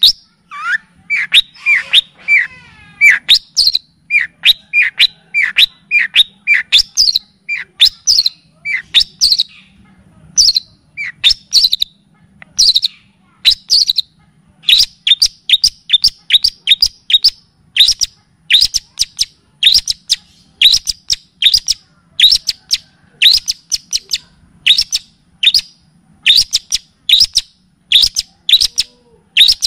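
Songbird masteran recording (kapas tembak and cililin song used to train long-tailed shrikes): short, sharp chirps that sweep steeply down in pitch, repeated in quick runs of a few notes each, with a faint low hum beneath.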